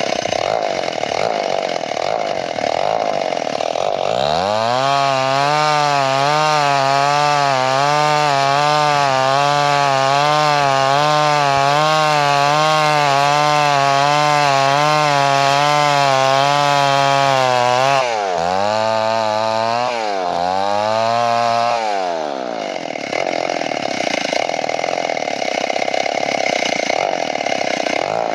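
Chainsaw cutting into wood, then running at high revs with a wavering pitch for about fourteen seconds. Its pitch dips twice before it bites back into the wood near the end.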